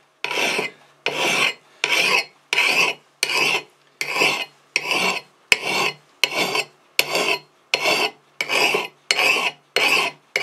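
Medium bastard file stroked across the steel bit of a hatchet, a steady rasping stroke about one and a half times a second, as the edge bevel is sharpened.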